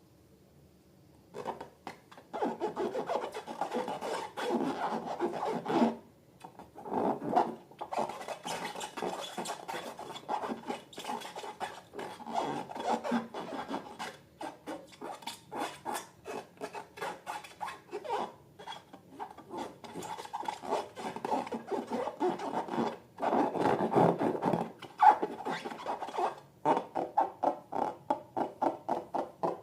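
Close-up handling of slime and balloons by hand: a dense run of quick rubbing, crackly strokes in bursts, with brief pauses about six, fourteen and twenty-three seconds in.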